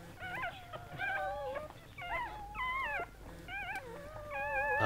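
Newborn Golden Doodle puppy crying: a run of about seven short, high, wavering squeals.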